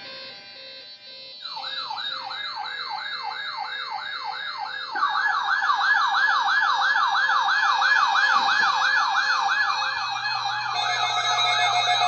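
Several NOAA weather alert radios sounding their alarms for the required weekly test: a siren-like rising sweep, repeating about three times a second, starts about a second and a half in. A second, louder sweeping alarm joins about five seconds in, and a steadier alarm tone joins near the end.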